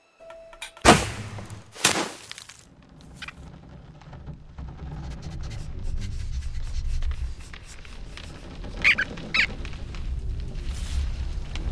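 Cartoon soundtrack effects: two sharp swishes about a second apart near the start, then a low rumble that slowly builds, with two short squeaks a little before the end.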